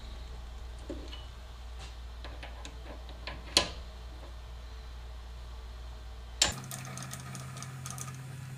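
Light metal clicks and knocks from hands working a mini lathe: tightening the chuck, setting the tool post and turning the carriage handwheel. There is a sharper click about three and a half seconds in and another about six and a half seconds in, over a steady low hum that steps up slightly in pitch after the second click.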